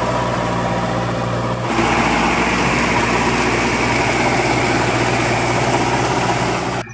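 Mahindra Arjun Novo tractor's diesel engine running steadily under load, driving a rotavator through wet paddy-field mud. The tone shifts abruptly about a second and a half in.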